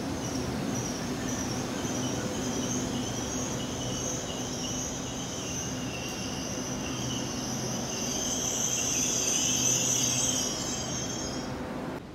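Hitachi IET train pulling into the platform with its brakes squealing, a high wavering squeal over a steady low hum. The squeal grows louder near the end and stops as the train comes to a stand.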